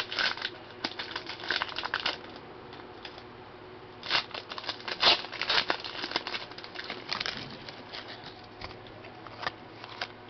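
Crinkling of a 2010 Donruss Elite card pack wrapper and the cards inside being handled, in irregular rustles and small ticks that come in two spells, the second starting about four seconds in.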